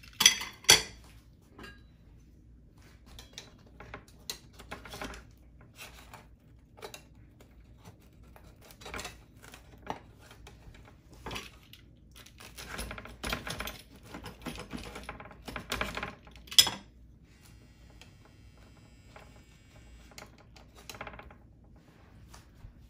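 A rolling pizza cutter's metal wheel cutting through a crisp-bottomed pizza crust and scraping against the metal pizza pan, as irregular clicks, crunches and scrapes that come in bursts. The sharpest clicks come just after the start and again about two-thirds of the way in. Near the end a metal spatula scrapes the pan.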